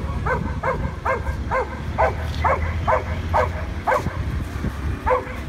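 A dog barking repeatedly, about two to three barks a second, pausing about four seconds in and starting again near the end, over a low steady rumble.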